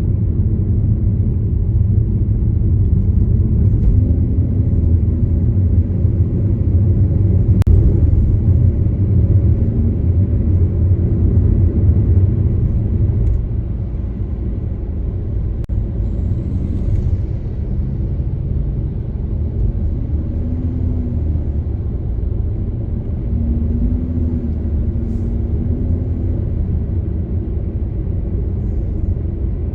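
A car on the move, with a steady low rumble of road and engine noise. It eases off slightly about halfway through, and there is one faint click early in the first half.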